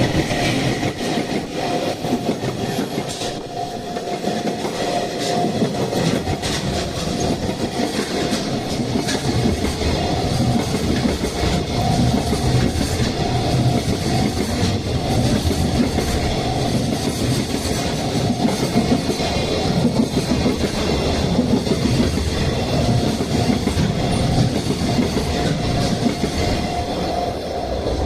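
Freight train hauled by an EF210 electric locomotive rolling steadily over a level crossing, its wheels clacking over the rail joints. A pulsing warning tone from the crossing bell rings on through the passage.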